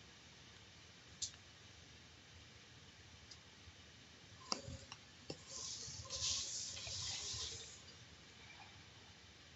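Faint computer mouse clicks: a single click, then a quick cluster of clicks a few seconds later, followed by a soft hiss lasting about two seconds.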